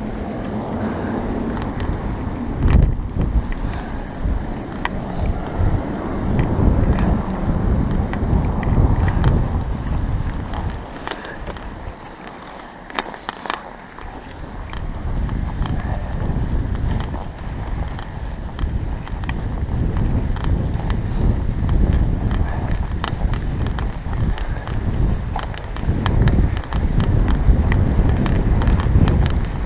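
Wind buffeting the GoPro microphone as a bike is ridden through fresh snow, a steady low rumble with scattered crunches and rattles. It eases for a couple of seconds about halfway through.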